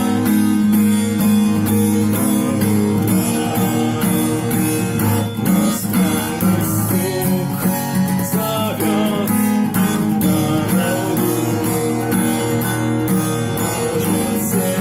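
Music without singing: a guitar strummed in a steady, even rhythm over sustained low chords.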